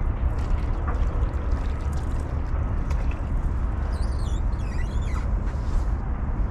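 Wind buffeting the microphone as a steady low rumble, over faint ticking from a fishing reel being wound in. A brief high, wavering chirping comes about four seconds in.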